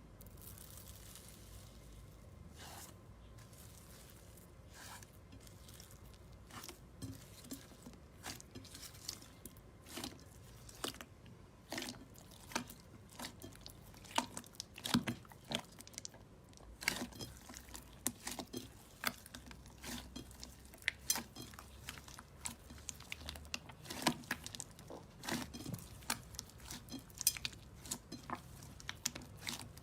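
Slime being squeezed and poked by hand, making irregular sharp clicks and crackles that come thicker and louder after about six seconds.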